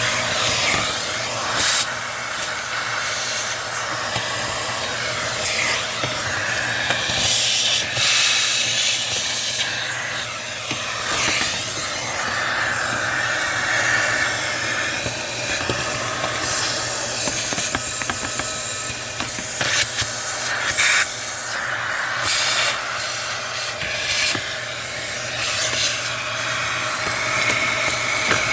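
Vacuum cleaner running with a steady motor hum, its suction hiss changing as the nozzle is worked around, with short rattles of debris being sucked out of the emptied heater core housing.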